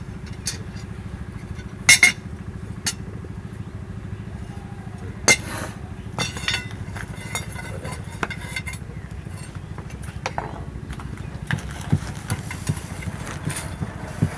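Metal pieces and tools clinking and knocking now and then, a dozen or so sharp taps, the loudest about two and five seconds in, over a steady low mechanical drone.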